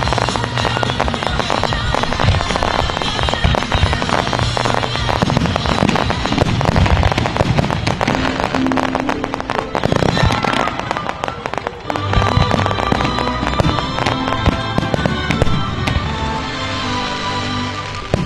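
Fireworks display: a rapid run of aerial shell bursts and crackling reports, with a brief lull near the two-thirds mark. Music plays underneath.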